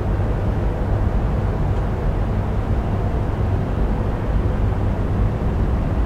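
Steady low rumble of background ambience, strongest in the deep bass, with no horn sounding.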